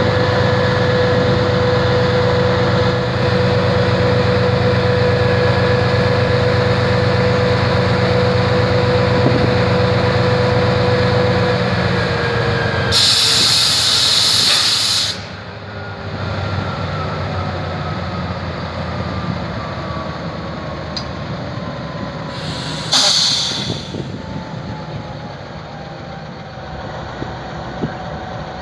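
GE 7FDL-12 diesel prime mover of a GEU-20 locomotive idling with a steady hum and whine. About 13 seconds in, a loud hiss of air lasts some two seconds; then the engine note drops and a whine slowly falls. A second, shorter hiss of air comes about 23 seconds in.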